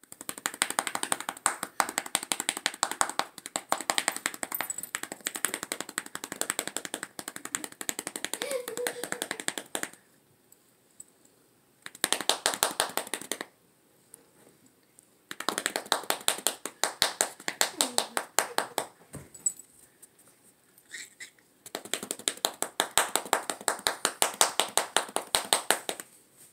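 Horse crop rapidly patting a Siamese cat's body, a quick run of light slaps coming in four bouts with short quiet pauses between them.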